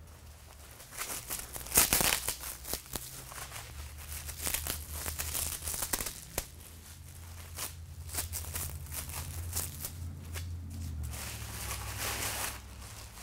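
Clear plastic wrap being unwound and pulled off a padded package, crinkling with irregular crackles, the loudest about two seconds in, over a low steady hum.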